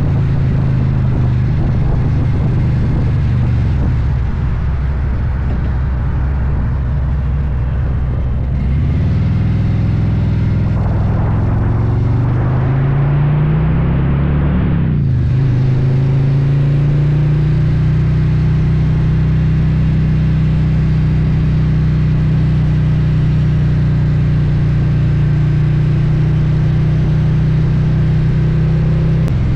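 Harley-Davidson V-twin engine running steadily on the move. Its note steps up a little about a third of the way in, then rises and drops back around the middle before holding steady again.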